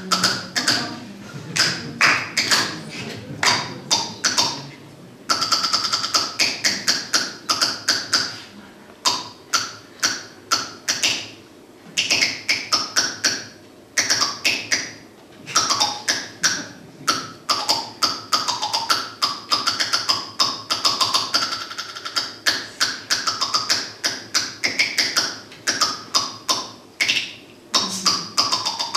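Mouth percussion played into microphones: long runs of rapid clicks and pops made at the mouth, shifting up and down in pitch like a tune. There are two short pauses, about five and fourteen seconds in.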